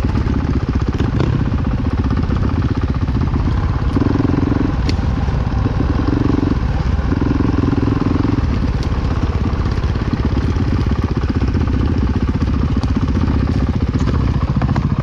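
Honda dirt bike's engine running under load on a rough forest trail, picked up in short bursts of throttle a few seconds in, with scattered knocks from the bike over rocks and roots.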